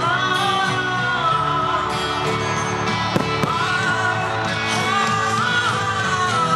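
Pop song with a singer holding long, drawn-out notes over a steady band accompaniment.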